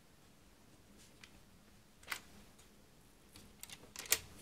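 Faint, sparse clicks and taps of plastic and metal as a copper comb busbar is fitted onto a row of DIN-rail miniature circuit breakers. There is a single click about two seconds in, then a quick run of clicks near the end, the last the loudest.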